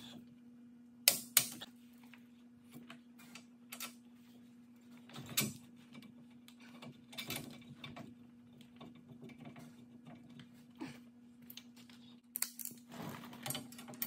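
Metal hand tools clinking and knocking at a vehicle's wheel hub as sockets and a wrench are picked up and fitted, with a quick run of ratchet clicking near the end. A steady low hum runs underneath.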